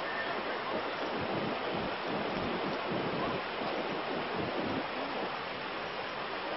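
Steady rushing of fast-flowing floodwater, an even hiss-like roar with a few brief low rumbles.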